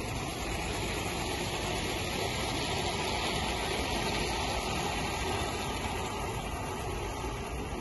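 Gauge 1 live-steam A4 locomotive and its goods train running past with a steady rushing noise, which swells a little midway as the train comes nearest.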